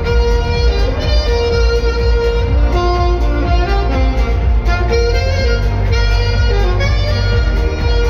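Alto saxophone playing a melody with long held notes over a backing track with a deep bass line.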